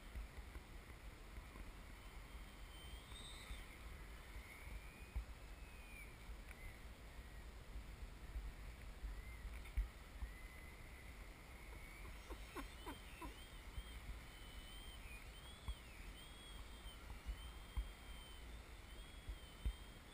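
Faint high whine of a remote-control model airplane's motor flying overhead, its pitch gliding up and down in slow arches, over a low wind rumble on the helmet microphone. A few short clicks sound about twelve seconds in.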